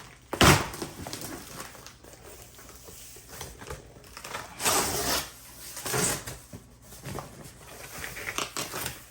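A taped cardboard box and its packing being torn and pulled open: irregular tearing, crinkling and scraping, with a loud knock about half a second in.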